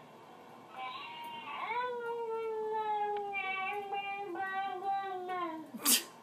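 A baby's long, drawn-out vocal squeal, held for about four seconds and slowly falling in pitch, heard through a baby monitor's speaker. A sharp click follows near the end.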